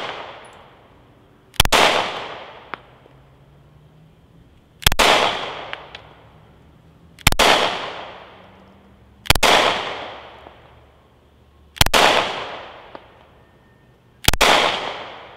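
Six shots from a Taurus G3C 9mm pistol fired one-handed, about two to two and a half seconds apart, each followed by a long echo. The pistol cycles every shot without jamming.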